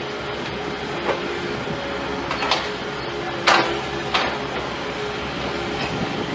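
A heavy machine running steadily, with four sharp metallic clanks, the loudest about three and a half seconds in.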